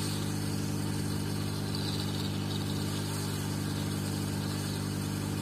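SMD hot-air rework station running steadily: an even blast of air hiss over a low electrical hum. The hot air is heating the speaker's audio amplifier IC to reflow it, the suspected cause of the speaker giving no sound.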